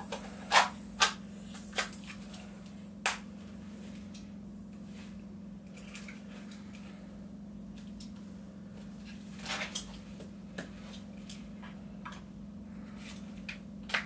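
Short, sharp plastic clicks and knocks of an airsoft gas blowback magazine being reassembled, the gas magazine body pushed and snapped back into its polymer outer shell. The clicks are scattered, several in the first few seconds and a few more about ten seconds in.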